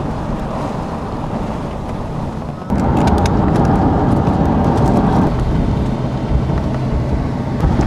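A car driving, with steady road and wind noise. It gets louder from about three seconds in for a couple of seconds, with a few light clicks.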